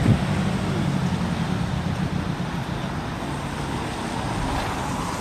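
Steady road traffic noise, a low hum under an even hiss.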